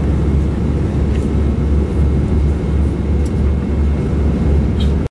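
Steady low rumble of cabin noise inside an Airbus A320 airliner, with a few faint clicks.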